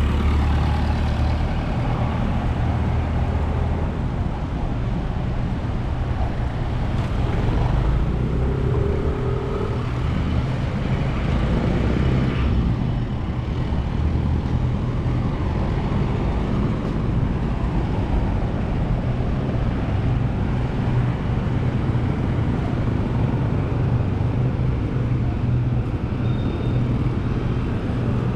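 Steady low engine hum and road noise of a vehicle being driven on city streets, with traffic around it.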